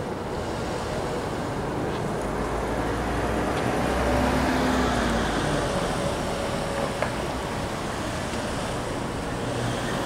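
Road traffic close by: cars and a van pulling away and driving past, engines and tyres swelling about halfway through. There is a single sharp click a little later.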